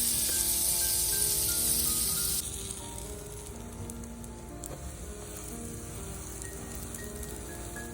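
Food sizzling in a hot frying pan: a loud, hissing sizzle that drops suddenly about two and a half seconds in to a quieter, steady crackle with small pops.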